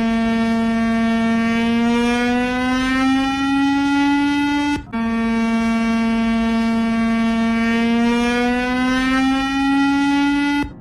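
Synthetic emergency-alert-style alarm tone: a loud, buzzy held tone that stays level, then slowly rises in pitch. It cuts off abruptly about five seconds in and at once starts over low, repeating the same slow rise.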